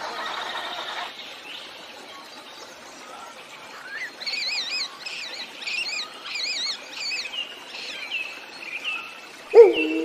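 Birdsong: repeated warbling whistled phrases from about four seconds in, then shorter single notes. Near the end a loud, long call begins and holds a steady pitch: a wolf howling.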